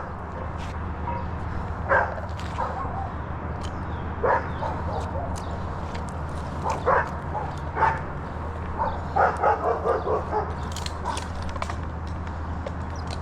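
A dog barking in single barks spaced a couple of seconds apart, then a quick run of barks near the end, over a steady low hum.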